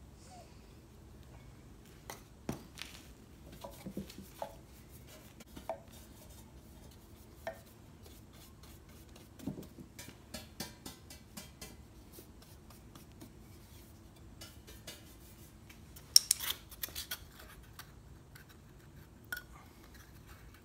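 A metal loaf-pan casting pattern being dusted with parting powder: scattered light taps and clinks of the bottle and a small brush against the pan, with runs of quick brush strokes and a louder clatter about sixteen seconds in.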